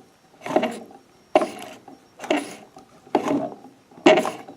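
Singer 211G156 walking-foot industrial sewing machine turned over slowly by hand in reverse, its needle bar, feed dog and hook mechanism clattering in five rhythmic bursts a little under a second apart. The machine is dry and in need of oiling.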